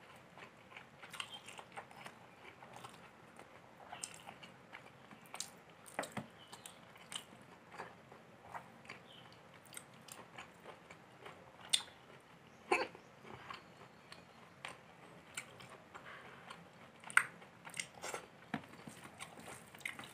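Close-up eating sounds of pulao rice and spicy chicken curry eaten by hand: chewing and mouth smacks, with fingers mixing rice on the plate. A steady run of small clicks and smacks, with a few louder ones around the middle and near the end.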